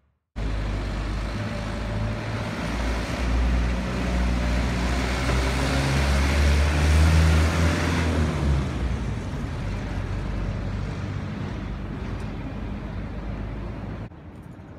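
Road traffic with a motor vehicle's engine running close by, loudest about seven seconds in, over a steady rumble of street noise. The sound drops off sharply near the end.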